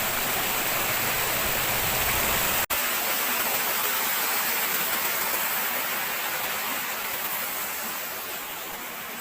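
Steady rushing noise of flowing water, broken by a momentary dropout about a third of the way in, then a little quieter and with less low rumble.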